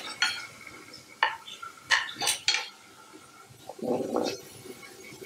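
Wooden spoon knocking and scraping in a skillet as meat and mushrooms are stirred, a handful of sharp clacks. About four seconds in, a rustling clatter as sliced onions are slid off a cutting board into the pan.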